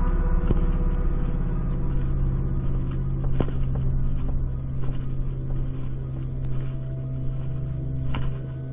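Vehicle engine running steadily with a low hum while driving over rough ground, with a couple of sharp knocks from the vehicle, heard from on board.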